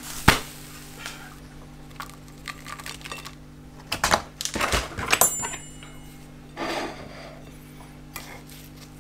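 Metal utensils clinking and knocking against a ceramic plate: one sharp knock just after the start, then a cluster of clinks about four to five seconds in, one of them ringing briefly.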